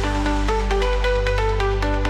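Electronic background music: a held bass note under a repeating pattern of short synth notes, with quick regular ticks.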